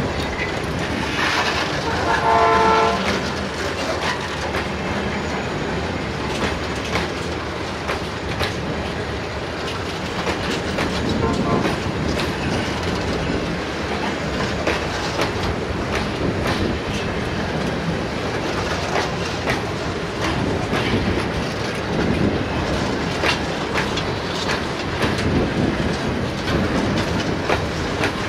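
Freight train passing over a level crossing. Its General Motors GT22 diesel locomotive sounds its air horn in one blast of about a second, about two seconds in, then the loaded wagons roll by with steady wheel clatter and clicks over the rail joints.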